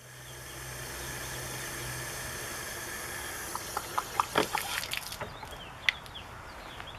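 Water from a garden hose running steadily into a trailer's fresh-water tank fill inlet and splashing onto the pavement below, as the tank is filled with chlorinated water. From about three and a half seconds in there are several sharp clicks and knocks as the hose is handled at the inlet, and the running water fades out near the end.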